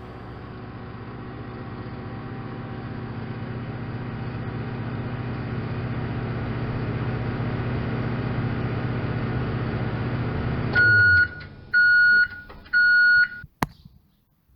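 Microwave oven running with a steady hum that grows louder, cutting off about eleven seconds in, then three beeps marking the end of the cooking cycle, followed by a single sharp click.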